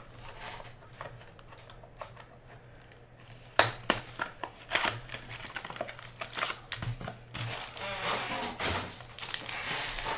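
Trading cards and their packaging being handled. It is quiet at first, then a loud sharp snap about three and a half seconds in, followed by scattered clicks and rustling that grows denser near the end.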